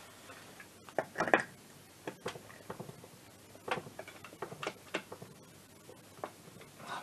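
Irregular light clicks and knocks of metal parts being handled while the variator is fitted on an MBK Spirit scooter engine, with a louder cluster of clicks about a second in.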